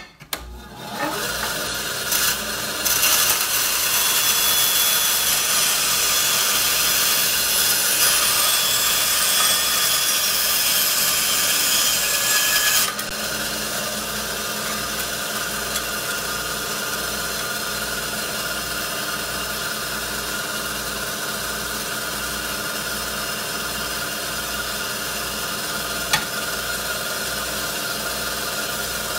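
Benchtop bandsaw blade cutting through the die-cast metal cab of a 1/64-scale model truck: a loud, harsh, high-pitched cutting noise for about twelve seconds that stops abruptly as the cut breaks through. The saw then runs on steadily without load, with a single sharp click near the end.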